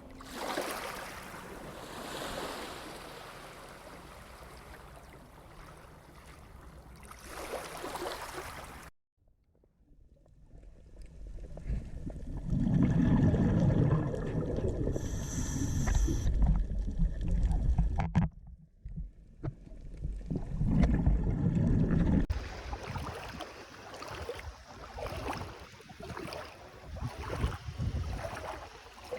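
Outdoor water sounds, splashing and lapping, with heavy low rumbling from wind on the microphone in the louder stretches. The recordings are spliced together, with abrupt breaks about 9 and 18 seconds in.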